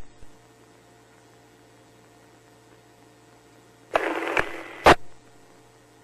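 Police radio channel with a steady low hum, broken about four seconds in by a brief keyed transmission with no words: about a second of static hiss that ends in two sharp clicks as the microphone is released.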